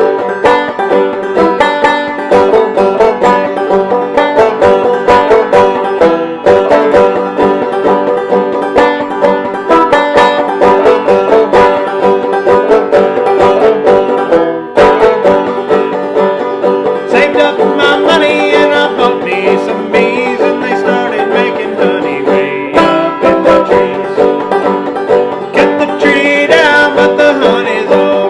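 Banjo played clawhammer style: a steady, driving instrumental break of quick plucked melody notes with the brushed strum and thumb-string rhythm of the frailing stroke.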